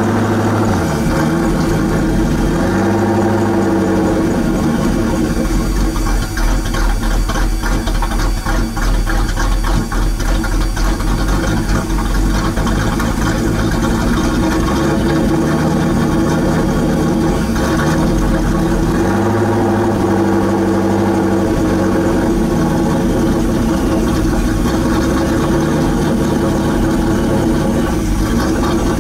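Ford Mustang SVT Cobra's 4.6-litre DOHC V8 idling steadily out of its twin exhaust tips, the low idle note wavering slightly now and then.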